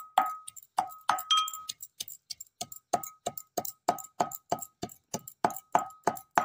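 Metal pestle pounding garlic in a tall metal mortar: a steady run of clinking strikes about three a second, each with a short metallic ring. The pounding pauses briefly about two seconds in.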